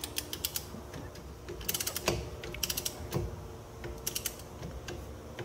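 Socket wrench ratcheting in about four short bursts of quick clicks as a 14 mm banjo bolt on the brake hose of a rear disc-brake caliper is tightened.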